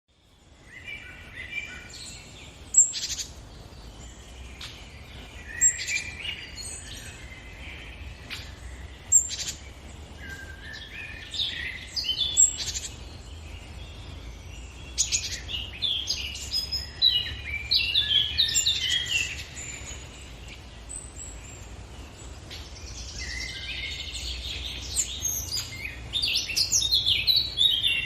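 Birds chirping and singing, many short high calls and trills overlapping, with a loud sharp note about every three seconds in the first half, over a faint steady low hum.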